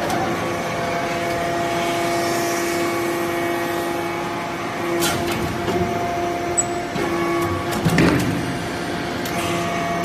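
Hydraulic power unit of a vertical metal-chip briquetting press running with a steady whine, with a few clanks from the press as it cycles and briquettes drop out, one about halfway and a louder one near the end.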